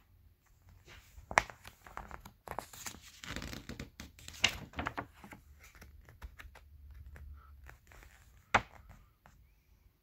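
Pages of a paper catalog being turned and handled: rustling, with three sharp snaps, about a second and a half in, near the middle and near the end.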